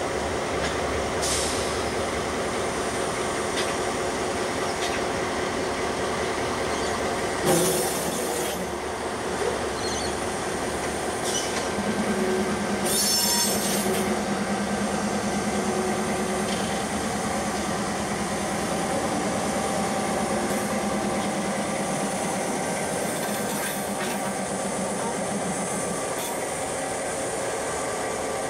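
Diesel-electric locomotives of a slow grain train running past: a T class hood unit leading EL class locomotives, their engines giving a steady drone with a deeper hum as the lead unit comes close. There is a sharp clank about seven seconds in, and a brief high wheel squeal near the middle.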